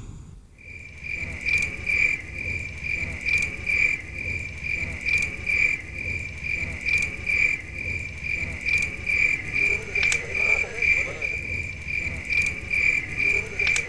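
Insect chirping: a continuous high trill that pulses about twice a second, starting about half a second in.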